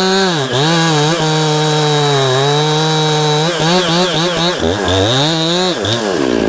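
Two-stroke chainsaw running at high revs while cutting a pine trunk, its pitch sagging and recovering several times as the chain bites into the wood. Right at the end the engine drops back to idle.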